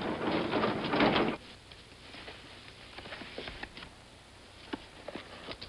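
A steady rushing noise cuts off abruptly about a second and a half in, leaving quiet room tone with scattered faint clicks and rustles of inkblot cards being handled.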